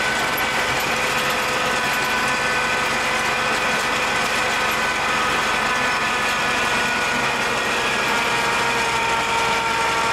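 GMC C7000 dump truck running steadily under way, heard from inside the cab, with a steady whine over the engine.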